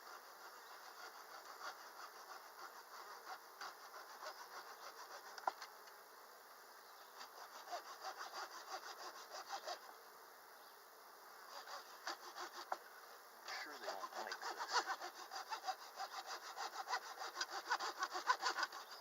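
Rapid back-and-forth scraping on the wooden beehive in bursts, a tool cleaning wax or propolis off the frames or box, over bees buzzing.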